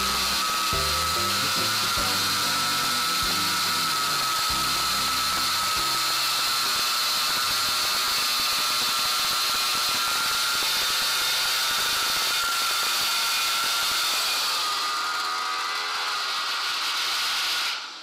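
Homemade bandsaw mill driven by a pocket-bike engine, running steadily with a high, slightly wavering whine as it works along a timber. It stops abruptly near the end.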